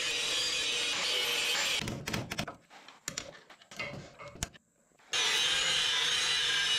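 DeWalt angle grinder running under load, grinding an old welded-on steel shim off a dozer's track roller frame rail. It runs steadily for about two seconds. Then there is a stretch of scattered clinks and scrapes with short gaps. From about five seconds in it grinds steadily again.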